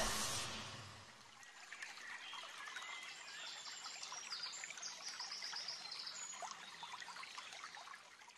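Music fading out, then faint bird chirps in quick repeated trills over a soft trickle of water.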